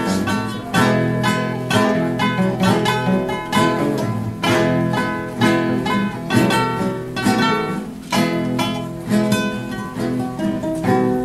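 Instrumental music: plucked string instruments, guitar-like, playing a brisk run of notes over chords, each note struck sharply and ringing away.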